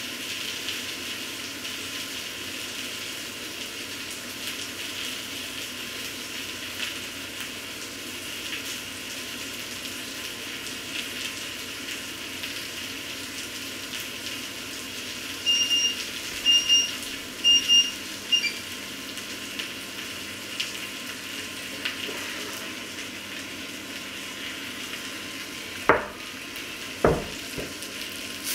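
Bread and egg frying in a pan, a steady sizzle. About halfway through, a quick series of short electronic beeps sounds, and near the end there are two knocks as the pan is set down on the wooden table.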